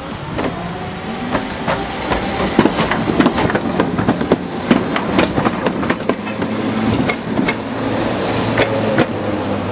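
BKM 601 high-floor tram pulling away and rolling past on street track, its wheels clicking and knocking irregularly over rail joints and points. Under the clicks are a steady low hum and a faint whine that rises slightly near the start.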